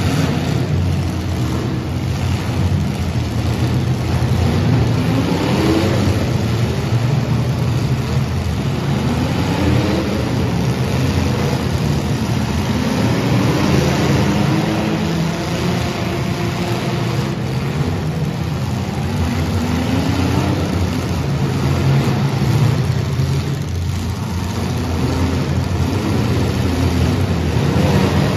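Compact demolition derby cars' engines running and revving, their pitch rising and falling again and again.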